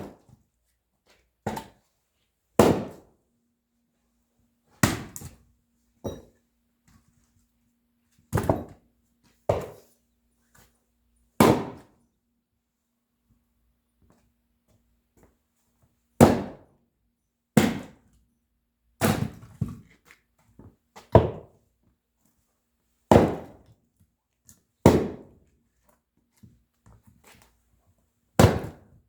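Axe splitting firewood: a series of sharp wooden thunks, one strike every second or two, with a pause of about four seconds midway.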